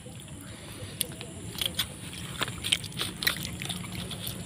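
Eating by hand: scattered light clicks and small smacks as stir-fried snail meat is picked from a banana leaf with the fingers and chewed.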